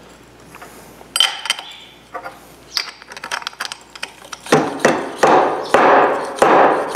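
Fork seal driver slid along the tube of a 2000 KTM 300 EXC upside-down fork and struck down on the new fork seal, driving it into its bore. A light metal clink about a second in and a few small clicks, then from about halfway through a run of about six hard metal clacks, each ringing briefly.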